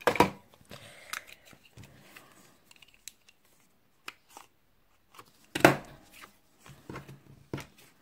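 Hand-held corner rounder punch snapping shut as it cuts the corners of paper cards: a sharp clunk at the start and a louder one about five and a half seconds in, with light paper handling and small ticks between.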